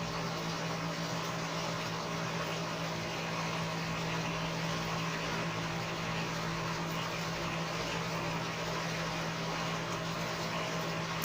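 Steady machine hum with one constant low tone over a soft even hiss, unchanging throughout.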